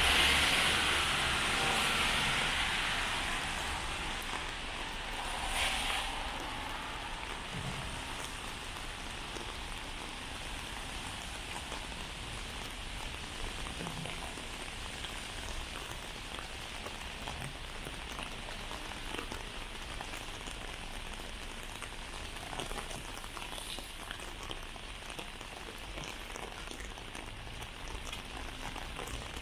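Steady rain falling on a wet street. A louder rushing hiss in the first few seconds fades away, and a brief swell comes about six seconds in.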